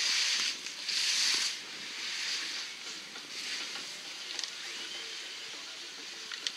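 Skis hissing and scraping across snow as skiers turn through moguls, with two louder swooshes in the first second and a half and softer sliding after.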